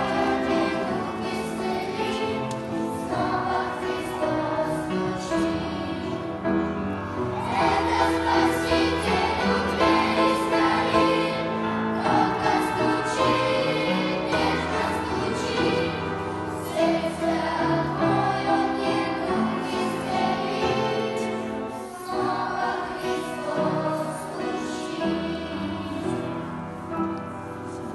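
Sunday-school choir singing a Christian song, with held, changing chords and no pauses.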